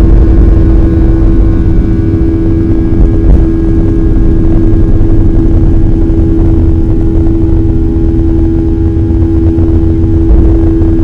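Boeing 737-800's CFM56-7B turbofan engines at takeoff thrust, heard from inside the cabin over the wing: a loud, steady roar with a constant droning hum and deep rumble as the jet rolls, rotates and lifts off.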